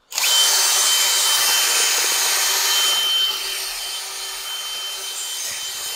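Power drill spinning a paddle mixer through wet VersaBond mortar in a plastic bucket: a steady motor whine over the churning, scraping noise of the mortar. The sound drops a little about three seconds in.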